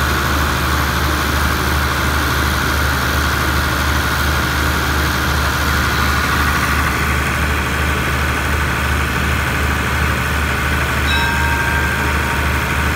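Diesel engine of a standing express train idling steadily: an even low hum with a steady higher whine over it.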